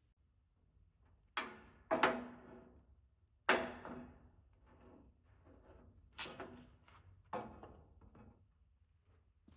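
A series of sharp knocks and clatters of hard objects being handled and set down on a hard surface, five louder ones with softer rattling between.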